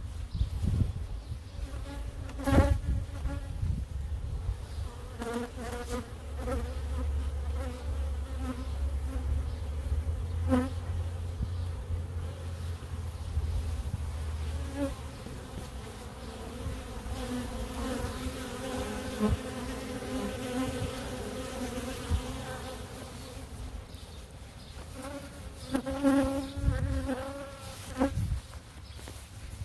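Honey bees buzzing in flight around a hive entrance, the hum swelling and fading as bees pass close by. A low rumble runs for several seconds in the first half, and a few sharp knocks stand out, the loudest about two and a half seconds in.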